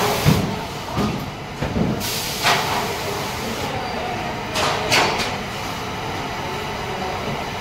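Factory-floor background noise: a steady machinery hum with a few knocks in the first couple of seconds and short hissing bursts about two and a half and five seconds in.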